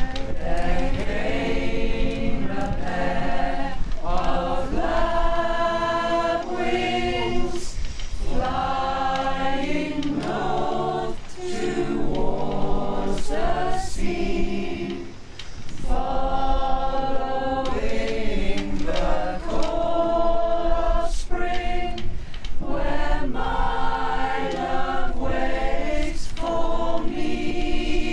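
A choir singing in harmony, in phrases a few seconds long with a brief break about halfway through, over a steady low rumble.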